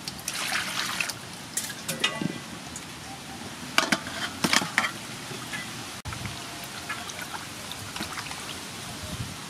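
Water pouring into an aluminium basin, then a metal bowl of whole cuttlefish tipped into the water with a few splashes about four seconds in. After that, hands slosh and rub the cuttlefish around in the basin of water.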